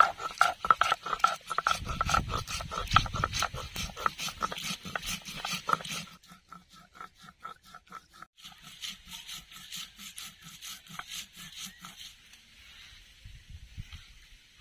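Stone grinding roller worked back and forth on a stone slab (shil-nora), crushing dried red chillies and coriander seeds into paste: a quick, even run of scraping strokes, several a second. The strokes are loudest for the first half, grow softer, and stop about twelve seconds in.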